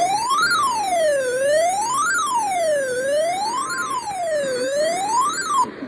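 Siren-like alert tone wailing: a single tone sweeps smoothly up to a high pitch and back down about every second and a half, three and a half times, then cuts off abruptly near the end. It is the alert sound that opens an emergency broadcast of a tornado watch.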